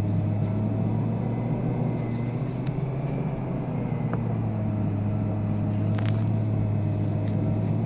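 Car running and rolling along, heard from inside the cabin: a steady low drone with a faint higher tone that dips and rises slightly. A few faint clicks.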